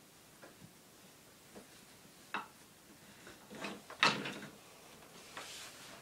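Toy trains and track pieces being handled, with a few scattered clicks and clacks, the loudest a quick cluster a little past the middle.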